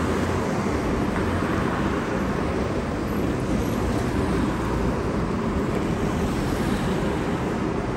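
Steady vehicle and road noise, an even rushing hum with no distinct events.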